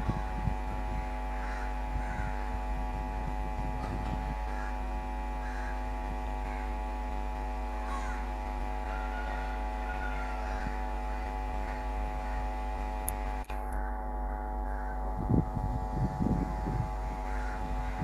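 Diesel locomotive engine giving a steady drone as it approaches hauling a passenger train. Crows caw in the first half, and low uneven thuds come in near the end as the train draws close.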